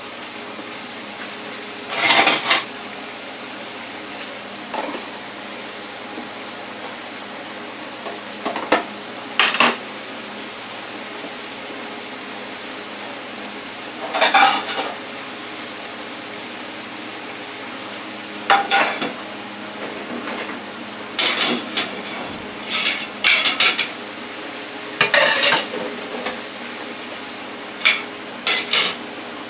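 Seafood deep-frying in an electric deep fryer with a steady sizzle, broken about a dozen times by brief clatters of metal tongs, a plate and a mesh strainer being set down on a tile countertop.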